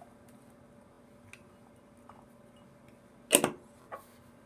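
Handling noise: a few faint ticks, then one loud sharp click a little over three seconds in and a smaller click just after, over a faint steady hum.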